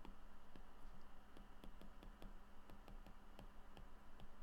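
Faint, irregular clicks and taps of a stylus on a tablet screen as an equation is handwritten, a few each second, over a faint steady hum.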